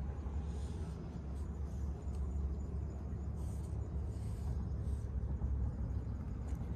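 Steady low outdoor rumble of background noise.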